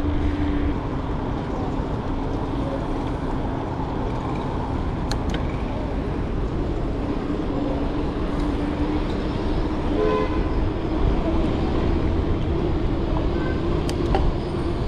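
Road traffic noise with a steady low hum and rumble, and a short car horn toot about ten seconds in.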